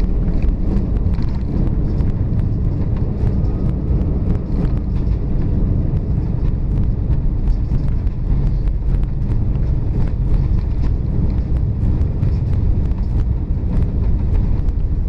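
Cabin noise inside an Airbus A319 rolling out along the runway after landing: a steady low rumble of the jet engines and wheels on the tarmac.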